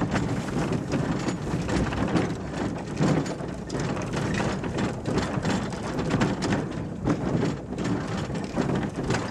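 Steam-hauled open wagon running along the track behind a replica of the 1825 Locomotion engine, its wheels and running gear rattling and clattering steadily with irregular knocks.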